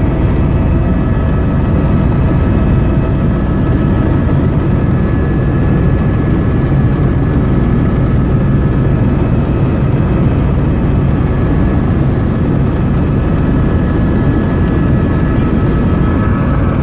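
Helicopter in flight heard from inside the cabin: a loud, steady rotor and engine rumble with a few faint, steady whining tones above it.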